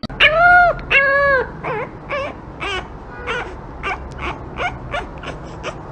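A dog whining: two long drawn-out whines, then a run of shorter whimpers and yips, about two a second.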